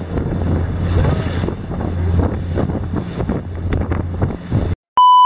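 Boat motor running steadily under wind buffeting the microphone and water rushing past the hull. Near the end the sound cuts off abruptly, followed by a short, loud, single-pitch beep.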